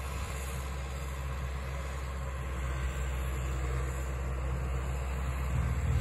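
Kubota M6040 tractor's diesel engine running steadily, a low hum heard from a distance, growing louder near the end as the tractor comes closer.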